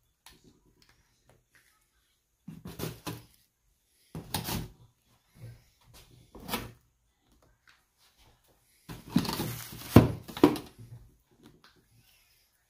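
Handling noise as fuel-line clamps are taken off a freshly glued subwoofer assembly: a string of short rustling scrapes and knocks, the loudest cluster near the end with a sharp click.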